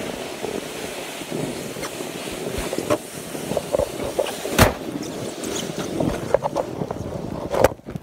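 Snowboard sliding down a slope of powdery snow: a steady scraping rush of the board over the snow, broken by two sharp knocks, one a little past halfway and one near the end.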